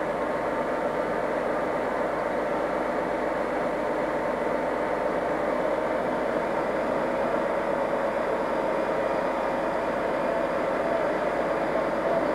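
Diesel locomotive engines drone steadily as a Class 57 locomotive creeps slowly into the depot, the sound growing slightly louder in the second half.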